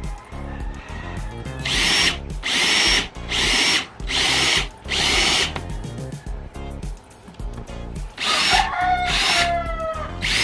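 Hand-held electric drill run in a series of short bursts, each a second or less, as the bit enlarges a hole in a metal motorcycle brake lever.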